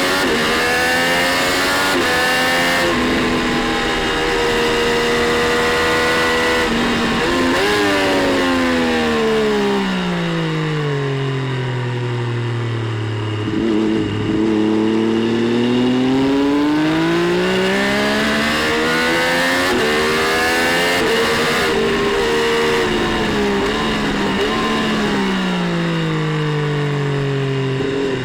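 Triumph Street Triple 765 RS inline three-cylinder engine at full song on track, heard from the rider's seat. It revs hard through quick upshifts, the pitch dropping sharply at each shift, then winds down as the bike slows for a corner. It picks up again and slows once more near the end.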